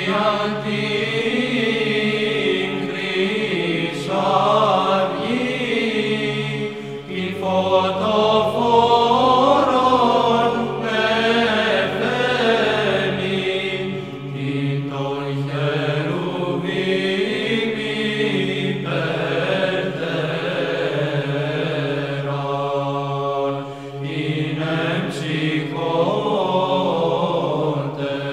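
Background music of Byzantine chant: sung phrases with winding melody over a steady low held drone (ison).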